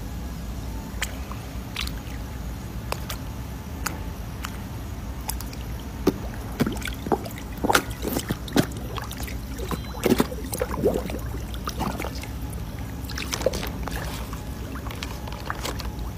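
Koi splashing and gulping at the pond surface as they crowd in to feed from a hand. The splashes come irregularly, thickest and loudest in the middle of the clip.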